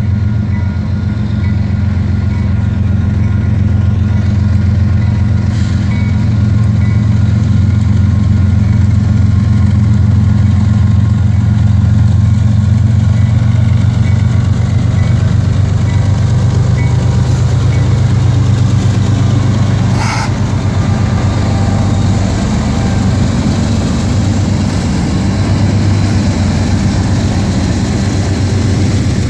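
GE diesel-electric freight locomotives, an AC45CCTE leading and an AC4400CW trailing, passing close by under power with a deep, steady engine drone. A single sharp knock comes about twenty seconds in.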